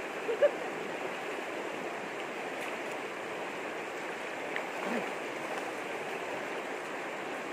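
Shallow rocky river running steadily over rapids, with a brief louder sound about half a second in.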